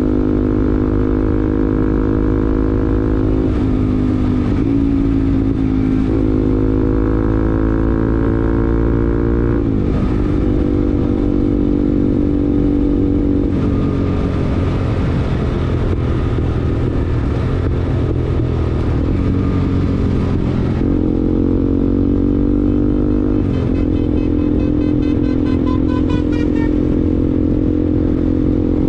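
Bajaj Pulsar NS200's single-cylinder engine through an R9 racing exhaust, running on the move. The engine note climbs and falls several times as the throttle is rolled on and off.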